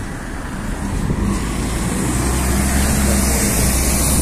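LiAZ 5292 city bus pulling away from the stop, its engine running with a deep steady hum that grows louder from about a second in as it moves off.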